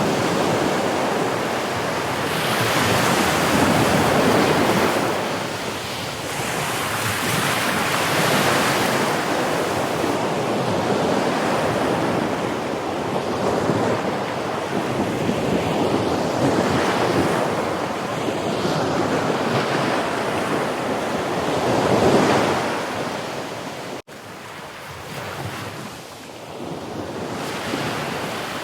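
Sea waves breaking and washing up as surf, swelling and ebbing in surges every few seconds. Near the end the sound cuts out for an instant and resumes quieter.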